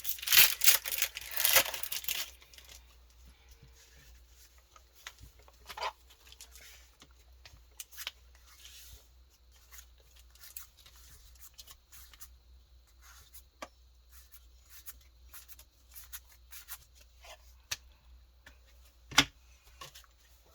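Foil wrapper of a Pokémon card booster pack torn and crinkled for about the first two seconds, then faint rustles and light clicks of cards being handled, with one sharper tap near the end.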